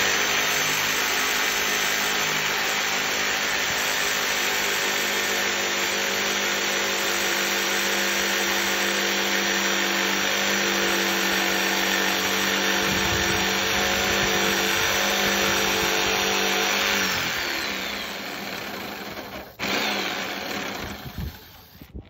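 DeWalt jigsaw running steadily as its blade cuts through the wooden edge of a door along a marked line for the lock hole. About three quarters of the way through the motor is switched off and winds down, and a short burst of noise follows.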